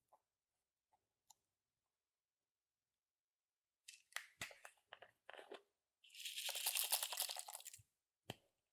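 Clear slime being squished and worked by hand, giving a run of sticky crackles and pops, then a dense crackling burst of nearly two seconds as it is pressed, and one last click near the end.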